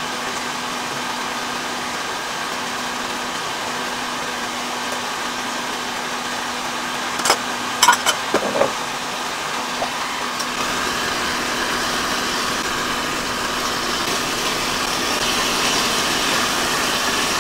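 Pork short ribs sizzling as they sear in oil in an enamelled cast-iron Dutch oven: a steady hiss over a faint low hum. A few quick clicks and knocks come about halfway through, and the sizzle grows louder over the last several seconds.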